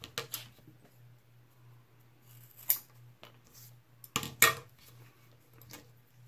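A handful of sharp taps and clicks as a piece of leather and a steel skiving knife are handled on a plastic cutting mat, the loudest about three seconds in and a pair near four and a half seconds, over a faint steady low hum.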